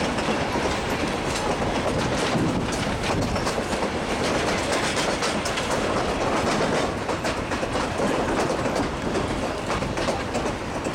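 Narrow-gauge passenger train heard from aboard one of its coaches: a steady rumble and clatter of the cars' wheels on the track, with many sharp clicks.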